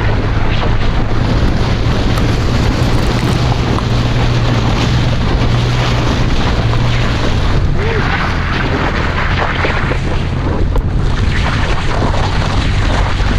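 Toyota FJ Cruiser with tire chains on all four wheels, driving, heard from inside the cab. Its 4.0-litre V6 hums steadily under a dense rattle and rumble of the chains and tires.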